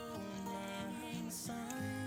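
Background music: a melody of held notes that step from one pitch to the next.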